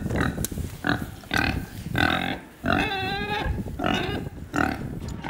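Pigs grunting: a series of short grunts about once a second, with a longer, wavering call about three seconds in.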